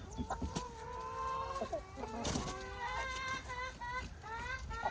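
Several hens calling and clucking as they squabble over the pecking order. At first the calls are long and steady. About halfway in they turn to a quick run of short rising calls, with a few light taps mixed in.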